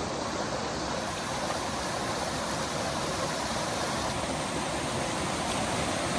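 Steady rushing of a mountain stream or waterfall, an even, unbroken noise.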